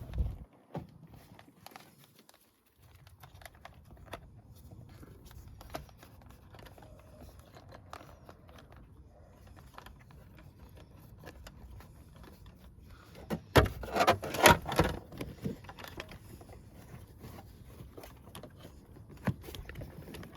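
Small clicks and rustling from plastic car trim and wiring being handled, over a low steady hum. About fourteen seconds in comes a short run of louder sharp clicks and scraping.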